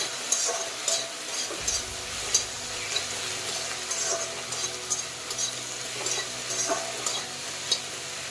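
Kohlrabi and chopped tomatoes sizzling in a kerahi (wok) while being stirred, with a spatula scraping and clicking against the pan at a regular pace, about once or twice a second.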